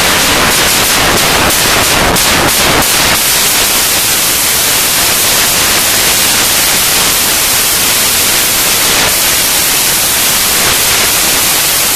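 Loud, steady static hiss like white noise, with a run of crackles in the first three seconds.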